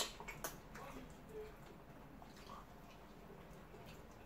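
Faint eating sounds: mouth clicks and smacks from chewing fried chicken and French fries, several sharp ones in the first second, then only faint chewing.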